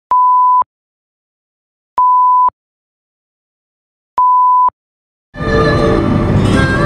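Three identical electronic beeps, each a steady single tone about half a second long, spaced about two seconds apart with silence between. Background music starts about five seconds in.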